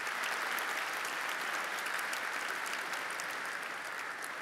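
Audience applauding steadily, beginning to fade near the end.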